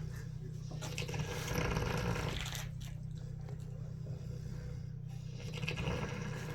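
Pig snoring: one long breathy snore about a second in, and a shorter one near the end.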